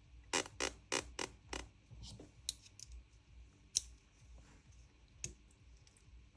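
Run of sharp clicks and taps from small metal parts, about five close together in the first second and a half, then scattered lighter ticks: a tool working at a pin in an airsoft rifle's trigger housing.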